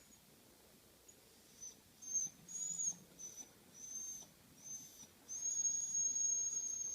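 Small dog whining in a series of short, very high-pitched whines, then one long drawn-out whine starting about five seconds in. It is upset as a family member leaves.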